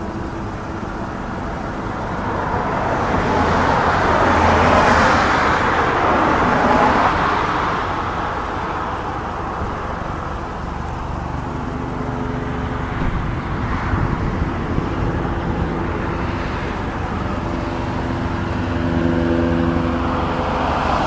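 Car engine running steadily, with the noise of other vehicles on the road swelling about three to eight seconds in and again near the end.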